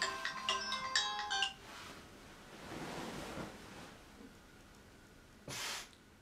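A smartphone playing a bright chiming melody tone of short repeated notes, which stops about a second and a half in. Then bedding rustles as a sleeper pulls the covers over her head, with one short louder rustle near the end.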